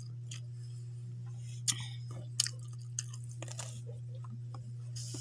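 A person chewing close to the microphone, with a few short wet mouth clicks and smacks between about one and a half and four seconds in, over a steady low hum.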